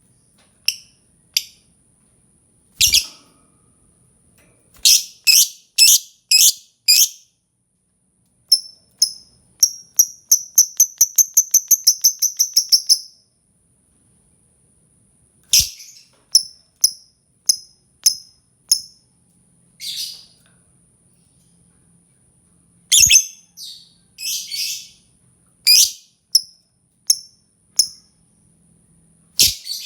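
Lovebird chirping: sharp, high chirps, singly and in short groups, with a fast run of about four chirps a second lasting several seconds about a third of the way in.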